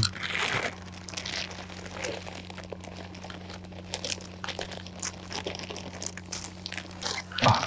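Plastic bag of dry silkworm-pupa groundbait crinkling and rustling in the hands as the powder is poured from it into a bait bucket, with a flurry of small crackles, loudest in the first second.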